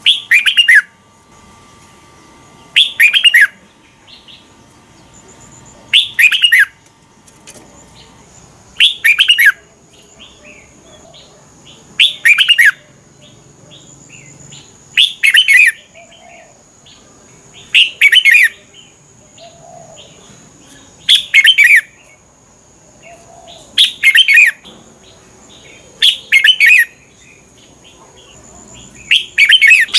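Red-whiskered bulbul singing a short, loud whistled phrase over and over, about once every three seconds.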